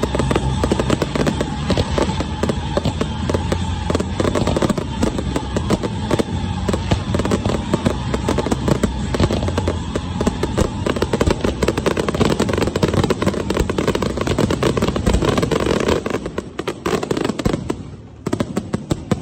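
Fireworks display: a dense, rapid barrage of aerial shells launching and bursting, with overlapping bangs and crackle. The barrage thins out about 16 seconds in and dies down near the end.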